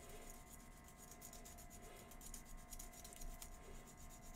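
Faint, quick, scratchy back-and-forth strokes of a small piece of sandpaper rubbing a melted joint in PLA 3D-printer filament, cleaning up the seam after the flashing has been snipped off.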